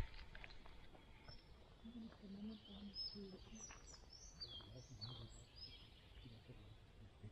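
Faint songbird calls: short whistled notes and chirps, several of them in the second half, over near silence.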